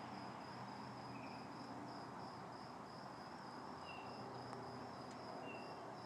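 Insects trilling: a steady, evenly pulsing high trill over background hiss, with three short, faint higher notes.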